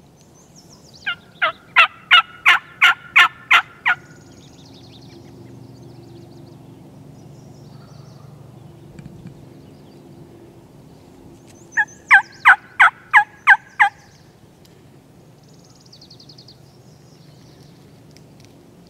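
Wild turkey calling: two loud runs of seven or eight rapid notes about ten seconds apart.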